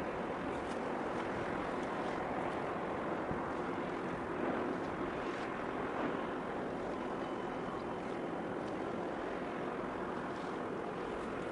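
Steady wind and wave noise over choppy sea water, with wind buffeting the microphone and a few faint clicks.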